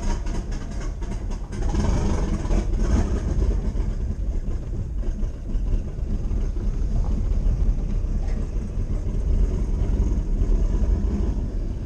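Turbocharged 1988 Chevrolet Caprice driving, its engine and road noise heard from inside the cabin as a steady low rumble.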